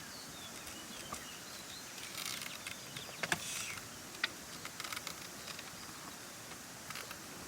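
Field ploughing: scattered scraping and rustling of soil, with a few sharp clicks about three to five seconds in, over faint birdsong.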